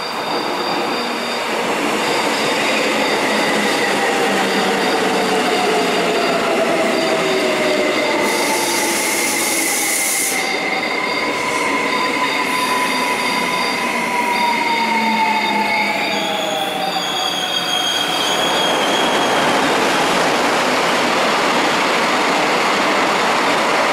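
Korail Line 1 electric multiple-unit commuter train running into the station alongside the platform. The whine of its electric motors falls in pitch as the train slows, over steady wheel and running noise. A short burst of high hiss comes about eight seconds in.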